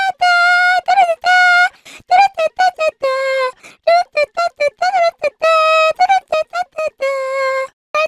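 High-pitched anime-girl meme voice singing a looping tune of quick 'da da da' syllables, with a few longer held notes in between and no accompaniment.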